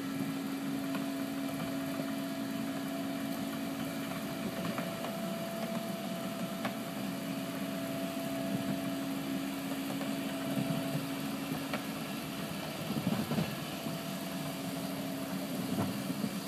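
Bobcat mini excavator's diesel engine running at a steady pitch as the machine works and moves along a ditch, with a few faint clicks over it.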